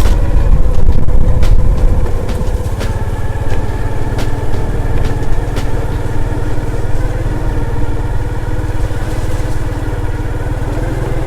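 Small motorbike engine, a Honda Wave RSX's single-cylinder four-stroke, running at a steady speed while riding, with a steady low hum and a few scattered clicks and rattles.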